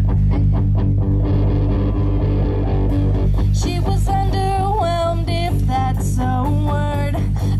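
Live rock band playing electric guitar, bass guitar and drums through a PA; a man's voice comes in singing about halfway through.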